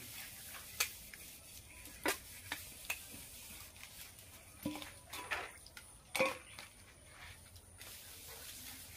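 Stainless steel dishes being scrubbed by hand: scattered metal clinks and knocks as plates and bowls are handled and set against each other, the loudest about six seconds in, with soft scrubbing between.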